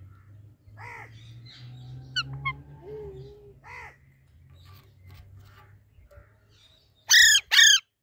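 Parakeets calling: a few softer arching calls and quick chirps, then two loud, harsh screeches in quick succession near the end.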